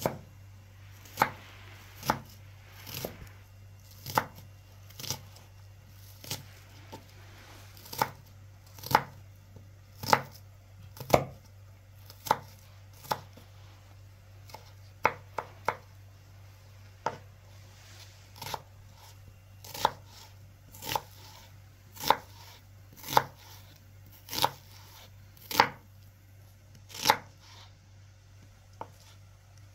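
Knife chopping on a cutting board: single sharp strokes at about one a second, at an uneven pace, with a quick run of three about halfway through.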